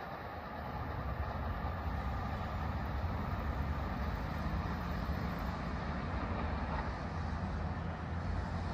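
Steady low rumble of distant vehicles.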